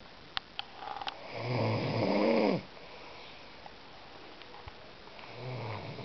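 A sleeping boy snoring: one snore about a second and a half in, lasting about a second, and the next starting near the end. A few faint clicks come just before the first snore.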